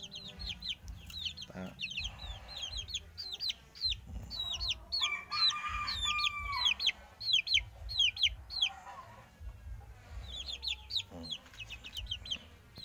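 Month-old Saigon–Pama crossbred chicks peeping constantly, a rapid run of short, high, downward-falling cheeps. About five seconds in, a longer held call lasting a second or two rises above the peeping.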